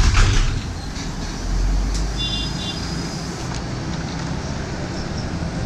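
Inside an articulated city bus: a burst of noise as the doors shut at the start, then the engine and road rumble rises as the bus pulls away from the stop. A few brief high squeaks come about two seconds in.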